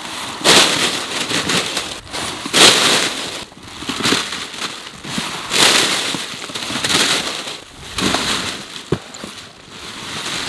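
A heap of plastic-wrapped instant-noodle packets crinkling and rattling as they are tipped out of cardboard boxes onto a pile, in repeated bursts of crackling, one for each box poured.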